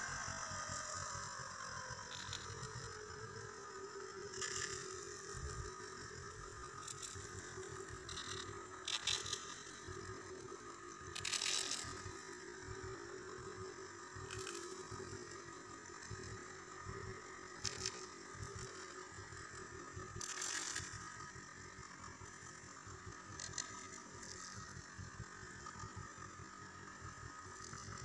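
A vehicle running, heard from on board: a steady hum whose pitch drops just after the start, over a low rumble, with scattered short clicks and rattles.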